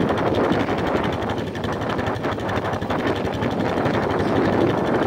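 Can-Am Outlander 450 ATV's single-cylinder engine running steadily while it wades through deep water on 30-inch Zilla mud tyres, with water churning around the machine.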